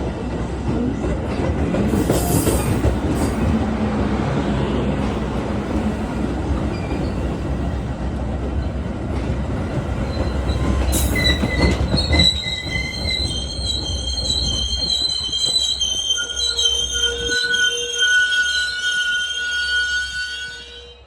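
Metra commuter train rolling on the rails with a heavy rumble of wheels, then from about halfway through the wheels squeal high-pitched, several wavering tones at once. The sound fades off near the end.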